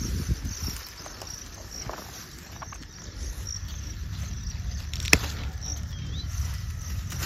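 Insects chirring steadily in an okra field, over a low rumble. About five seconds in comes a single sharp snap as an okra pod is broken off its stem.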